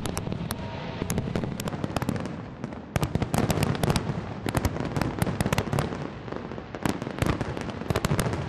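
Large aerial fireworks display: rapid, overlapping bangs and crackling bursts over a low rumble, growing denser about three seconds in and again near the end.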